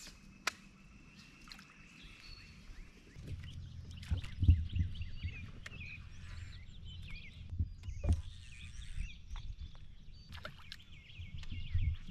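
Small birds chirping and singing over a low rumble, with a few sharp knocks; the loudest knock comes about four and a half seconds in. The rumble starts about three seconds in.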